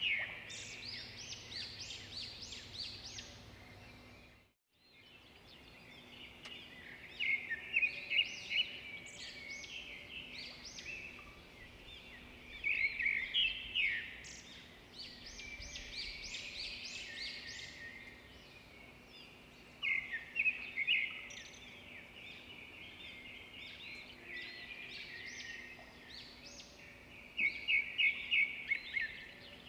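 Small birds chirping in repeated bursts of quick, high chirps, over a faint steady hum. The sound cuts out briefly about four seconds in.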